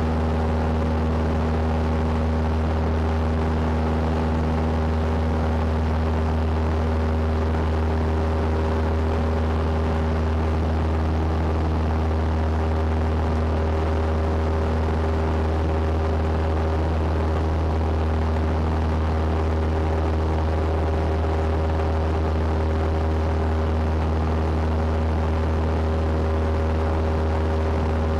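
Cessna 172's piston engine and propeller running steadily at takeoff power in the climb just after liftoff, heard from inside the cockpit.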